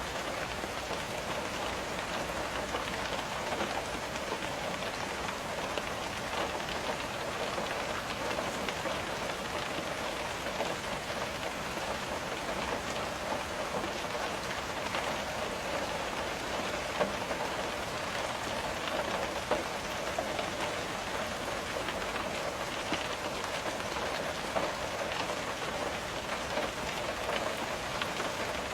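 Steady rain with raindrops pattering on a window: a dense, even hiss of tiny taps. A couple of louder single drops land past the middle.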